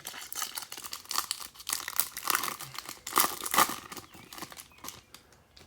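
Crinkling and rustling of a foil trading-card pack wrapper being handled, a dense run of quick rustles that gets louder around the middle.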